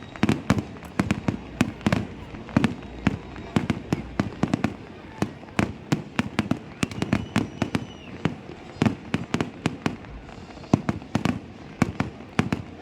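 Aerial fireworks going off in a rapid, irregular barrage of sharp bangs, several a second without a break, with a low rumble between the reports.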